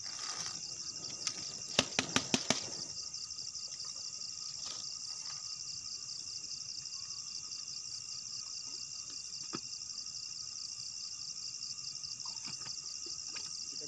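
Steady high-pitched insect chorus with a fine pulsing trill. A quick run of five sharp clicks comes about two seconds in, and a single click comes near ten seconds.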